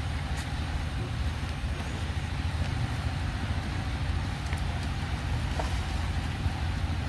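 Steady low rumbling background noise, with a few faint clicks.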